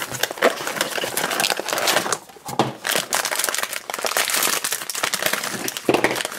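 Crinkling of a foil blind-box bag and handling of a thin cardboard box as a mini vinyl figure is unwrapped, with a brief lull a little after two seconds in.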